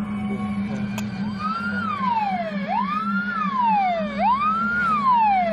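Ambulance siren wailing, starting about a second in: each cycle rises quickly and slides down slowly, about once every second and a half. A steady low hum runs underneath.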